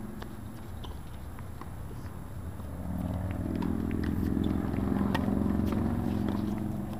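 Tennis balls being struck and bounced on outdoor hard courts: a scatter of faint, sharp knocks. From about three seconds in, a low rumble swells up and becomes the loudest sound.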